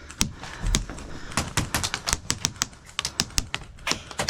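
Airsoft guns firing a rapid, irregular string of single shots, sharp clicks at about three to five a second, with a dull thump near the start.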